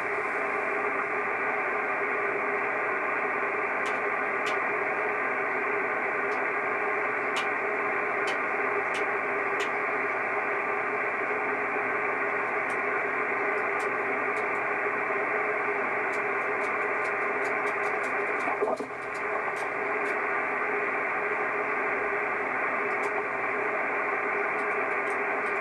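Kenwood TS-680S transceiver receiving 50.148 MHz in upper sideband: steady hiss of band noise through the receiver's narrow audio passband. No station is heard answering the CQ call. The hiss dips briefly about three-quarters of the way through.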